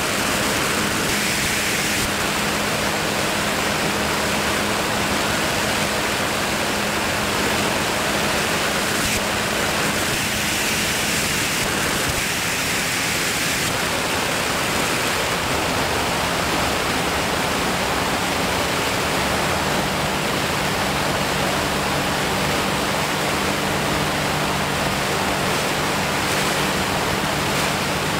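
Steady rush of wind on the microphone in flight, an even roar with no breaks, under a faint low hum that shifts pitch slightly about halfway through.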